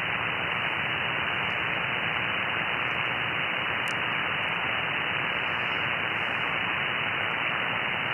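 Steady band-noise hiss from an Icom IC-7610 transceiver receiving on 20-metre upper sideband after a CQ call, with no station answering.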